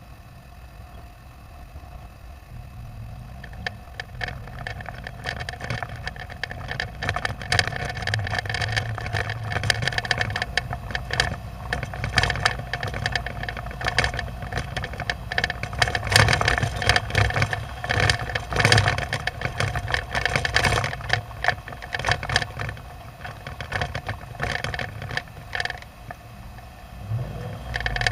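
Storm wind buffeting a rooftop camera dome: a low rumble with dense rattling and clicking. It builds over the first few seconds and then stays strong and gusty.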